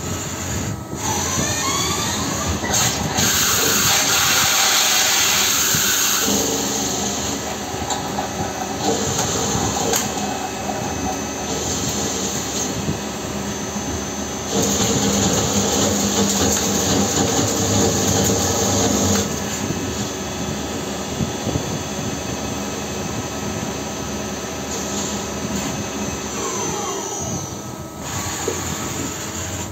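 CNC lathe facing and turning a workpiece held in a three-jaw chuck. The spindle whines up to speed about a second in and runs on steadily, with hissing that comes and goes in spells as the tool cuts. The spindle winds down near the end.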